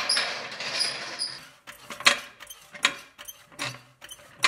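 Hydraulic floor jack being set under the front axle and pumped: a steady scraping noise for about the first second and a half, then a string of sharp mechanical clicks about half a second apart as the handle is worked.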